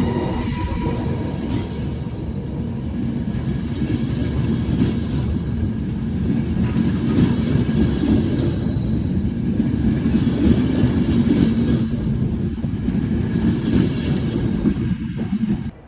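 Train running on the rails: a loud, steady rumble of wheels and running gear that cuts off abruptly just before the end.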